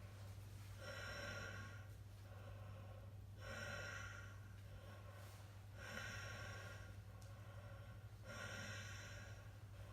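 A person's slow, heavy breaths in ice-cold water, four in all, about one every two and a half seconds, over a faint steady low hum.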